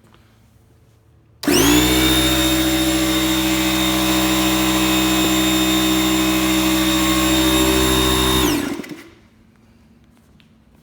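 Electric air compressor starting abruptly, running steadily with a loud motor hum and whine for about seven seconds, then switched off, its pitch sliding down as it spins to a stop.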